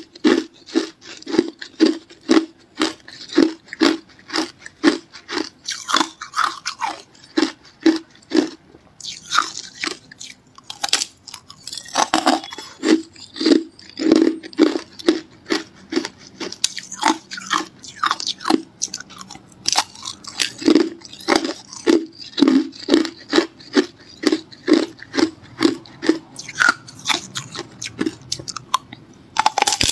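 Hard clear ice being bitten and chewed: a steady run of sharp crunches, about two a second.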